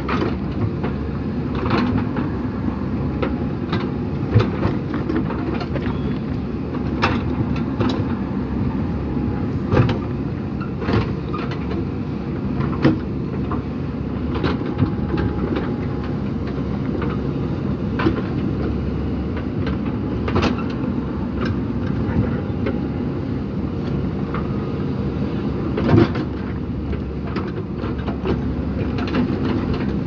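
JCB backhoe loader's diesel engine running steadily under load as the rear backhoe digs, with repeated clanks and knocks of the steel bucket striking and scraping rocky soil and stones.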